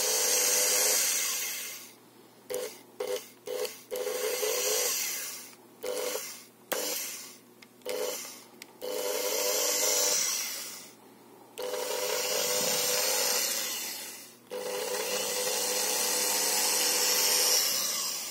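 Electric motor of the opened Alesya-300 kitchen mixer whirring in repeated runs, started and stopped again and again, dying away each time it is cut off. There are several quick blips about three seconds in, then longer runs of a second or more.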